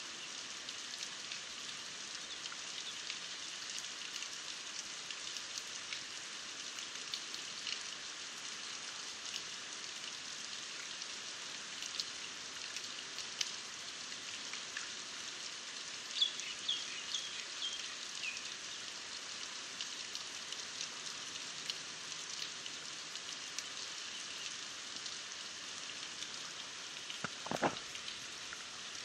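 Steady rain falling onto a flooded creek: an even high hiss with scattered ticks of drops. A brief run of high chirps comes about halfway through, and a bump near the end.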